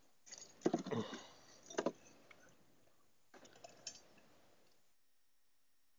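Keys jangling and things clattering as hands rummage in a Honda Gold Wing's hard saddlebag, with a few sharp clicks. The sound cuts off to near silence about five seconds in.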